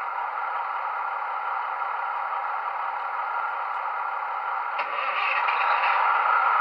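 A Bachmann model Class 158 DMU's DCC sound decoder plays a diesel engine idling through the model's small speaker, thin and with no deep bass. About five seconds in there is a click, and a louder hissing rattle joins.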